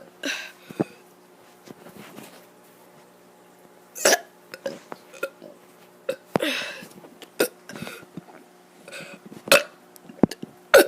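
A child's short burps, a string of brief separate ones every second or two, the longest about six and a half seconds in.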